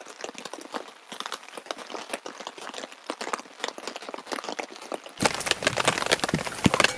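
Irregular patter of raindrops. About five seconds in it changes suddenly to louder, steadier rain falling on a tarp overhead.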